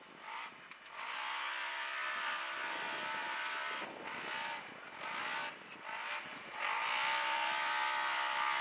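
Polaris RZR side-by-side's engine running hard on board, its pitch rising and falling as the throttle is lifted and reapplied. The engine note drops away briefly near the start, about four seconds in, and again around six seconds, before it pulls back up.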